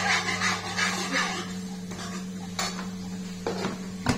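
A metal spoon stirring and scraping masala frying in a kadai, with a few sharp clinks against the pan near the end. A steady electrical hum runs underneath.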